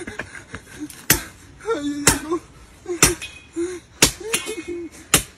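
Blade chopping into a living tree trunk: five sharp strikes about a second apart, with short vocal cries between the strikes.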